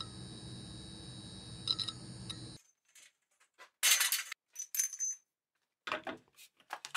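A steady hum with a few faint ticks, cut off abruptly about two and a half seconds in, then copper pipes, fittings and a vacuum pump being handled on a steel milling-machine table: short, sharp metallic clinks and scrapes, the loudest a bright ringing clink about four seconds in, and a cluster of knocks near the end.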